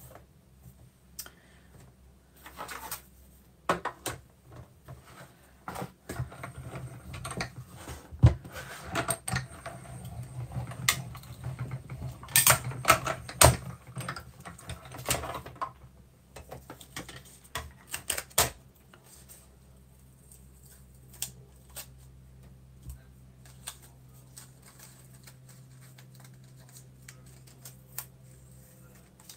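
Paper, tape and cutting plates handled and a die sandwich run through a small die-cutting machine: an irregular run of clicks, knocks and rustles for most of the first twenty seconds, then only occasional small paper clicks as the cut piece is worked out of the die.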